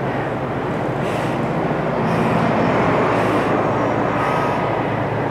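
A woman breathing hard from exertion, a short breath about once a second, over a steady rushing hum.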